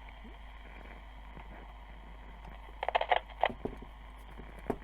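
Sharp clicks and knocks of a miniature 12AT7 vacuum tube being handled and pushed back into its socket on a radio chassis, a quick cluster about three seconds in and one more click near the end, over a steady low hum.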